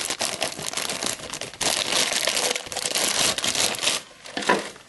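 Clear plastic packaging bag crinkling as it is handled, with a dense crackle that is loudest in the middle, then drops off about four seconds in before one more short rustle.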